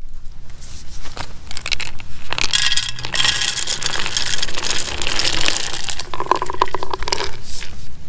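Shelled peanuts poured from a plastic jar into a tube bird feeder: a dense rattling clatter of nuts falling into the tube for about five seconds, starting a couple of seconds in, after a few separate clicks. The clatter turns lower in pitch about six seconds in.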